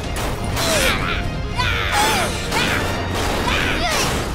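Cartoon fight sound effects: a rapid string of punch and impact hits with swishing, gliding whooshes, about two hits a second, over dramatic background music.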